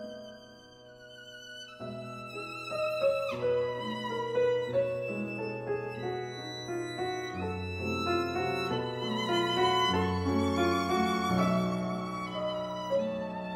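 Background music: a violin playing a slow melody with vibrato over lower accompanying notes, a new phrase entering about two seconds in.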